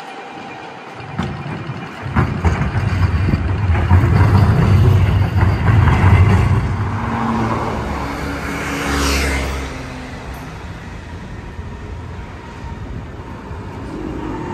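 City street traffic: road vehicles passing with a low rumble, loudest from about two to seven seconds in, then a hissing pass-by around nine seconds. Near the end a low-floor city tram comes along its street track.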